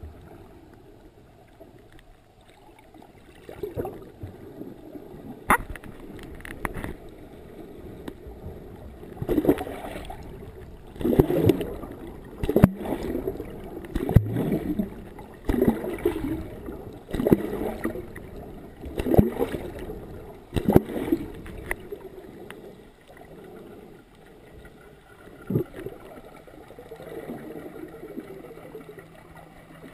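Water sloshing and gurgling around an underwater camera, muffled. Through the middle of the stretch come regular surges about every one and a half seconds, with a few sharp clicks.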